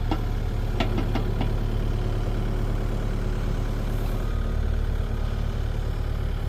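Truck diesel engine idling steadily under the transformer lift, its low hum shifting slightly about four seconds in. A few brief sharp knocks or clinks sound about a second in.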